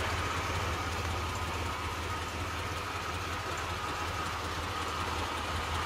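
1993 GMC Jimmy's V6 engine idling steadily, heard from beside the truck.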